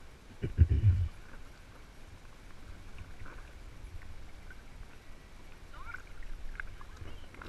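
Water sloshing and lapping around an inflatable kayak at the waterline, with a loud, low thump or splash about half a second in.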